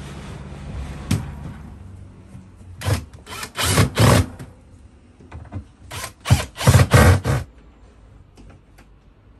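Cordless drill-driver run in short bursts, two groups of several bursts about three seconds apart, driving screws at the lower frame of a built-in caravan fridge. A steady low hum fades out in the first two seconds.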